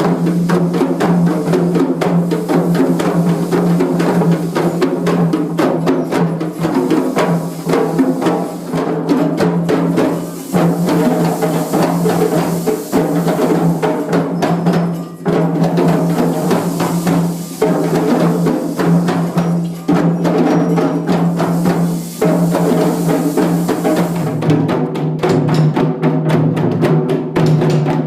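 Group drumming: many drums struck together in a fast, dense, continuous rhythm over a steady low tone. Near the end the playing thins to sparser, more separate beats.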